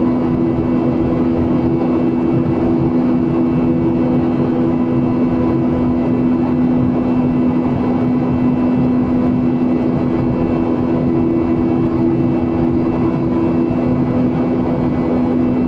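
Airliner cabin noise in flight: a steady, even rush of engine and air noise with a constant low hum, heard from a window seat.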